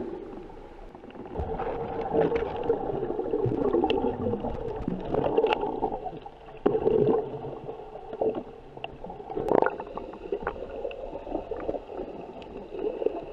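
Muffled underwater sound heard through a camera's housing: water churning and gurgling with air bubbles as a snorkeler dives, in surges, with scattered clicks and knocks.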